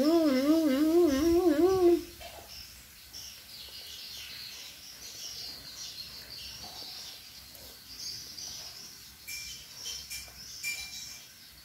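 A child hums a wavering note for about two seconds, its pitch wobbling up and down several times a second. Then high chirping carries on in the background, with a few light clicks near the end.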